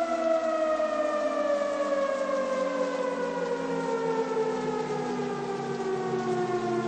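Civil defense siren sound winding down: two pitches slide slowly and steadily downward together over the whole stretch.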